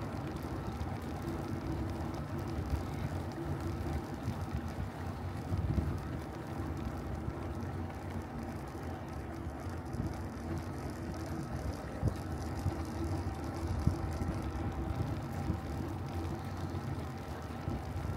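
Bicycle ride heard from on the bike: steady rumble of tyres rolling on the road, with wind on the microphone and a few light knocks from bumps.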